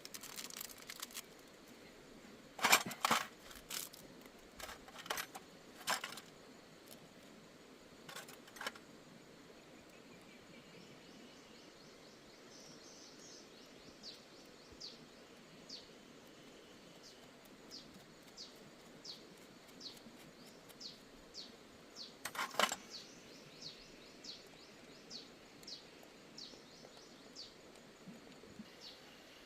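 Several sharp metal clinks and knocks from tools being handled, bunched in the first several seconds with one more later on. Partway through, a bird starts calling with short high chirps about once a second.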